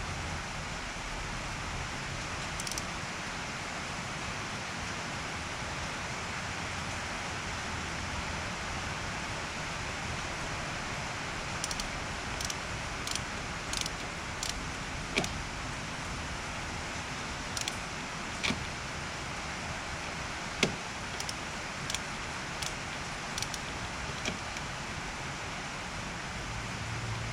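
Steady hiss of rain. From about halfway through come a dozen or so light, sharp clicks and taps of small hardware and hand tools being handled, one louder near the end.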